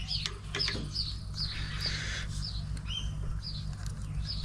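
A small bird calling: a rapid series of short, high chirps, each sliding down in pitch, about two or three a second.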